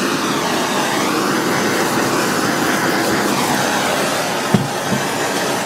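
A loud, steady rushing hiss, like a strong jet of air or flame, with a slowly wavering tone. Two light knocks come shortly before it cuts off suddenly near the end.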